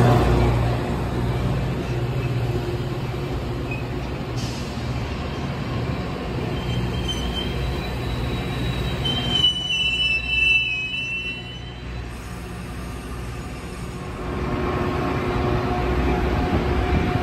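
Metra bi-level gallery passenger cars rolling past on the platform track with a steady rumble, louder in the first second as the locomotive moves away. Short, high-pitched wheel squeals come in about seven seconds in and again around ten seconds in.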